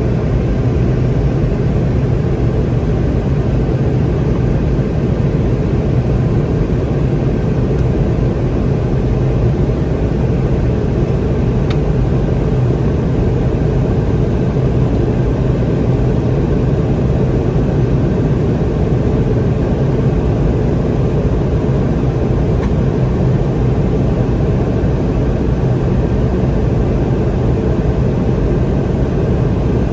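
Boeing 717's twin Rolls-Royce BR715 turbofan jet engines running steadily: an even rumble with a constant low hum.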